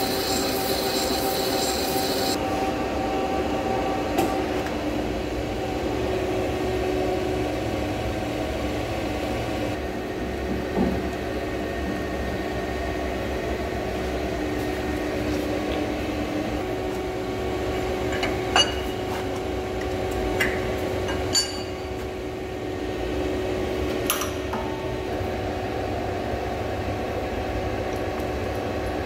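LZMT CW6280D lathe turning a large steel tube, the carbide tool cutting the outside with a bright hiss that stops about two and a half seconds in. After that the lathe keeps running with a steady hum, broken by a few sharp metal clinks and knocks.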